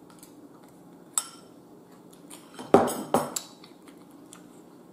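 Metal cutlery clinking against a bowl: one clink about a second in, then a cluster of sharper clinks and knocks around three seconds in.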